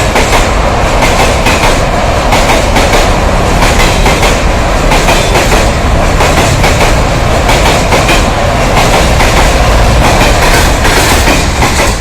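Freight train of NMG wagons rolling over a bridge, its wheels clattering rhythmically over the rail joints in a loud, steady clickety-clack.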